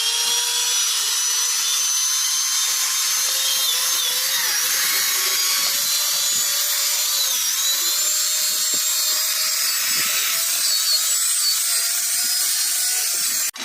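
A high-speed power tool running continuously with a steady whine. Its pitch dips briefly a few times as it comes under load, and it stops abruptly near the end.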